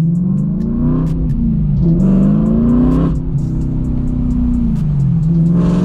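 Straight-piped BMW E92 M3's 4.0-litre V8 exhaust under throttle: the engine note rises, falls back about a second in, rises again to about three seconds, then settles to a steady drone.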